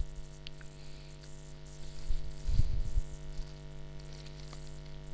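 Steady electrical mains hum with faint hiss on the recording microphone, a couple of faint clicks, and a low muffled bump between two and three seconds in.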